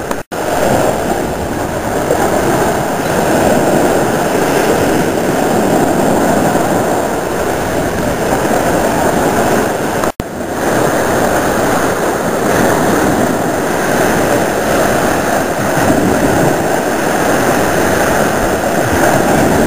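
Baltic Sea surf washing steadily onto a sandy beach, small waves breaking and foaming at the shoreline. The sound cuts out for a split second twice, near the start and about halfway through.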